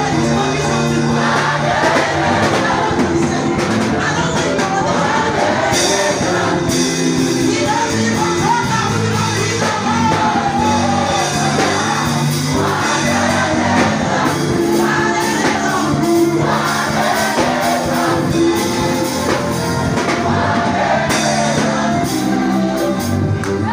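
Live church worship music: a man singing lead through a microphone and PA over a band of keyboard, electric bass guitar and drums, with backing singers joining in.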